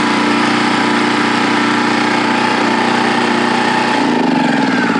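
Westinghouse iGen1200 inverter generator's small single-cylinder four-stroke engine running steadily. About four seconds in, its pitch starts to fall as the engine is shut off and winds down.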